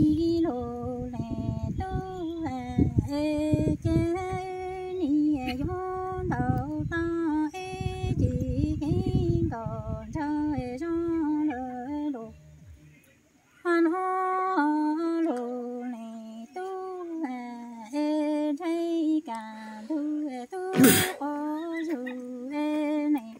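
A Hmong woman's voice chanting a lus txiaj verse, a sung-speech melody that holds and steps between a few notes, with a short breath pause about halfway. Wind rumbles on the microphone through the first half, and a single sharp knock comes near the end.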